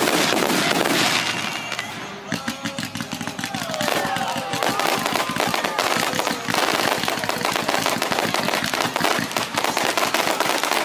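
Fireworks display: dense, rapid crackling and popping of exploding shells. It eases off about two seconds in, then builds back into a continuous barrage.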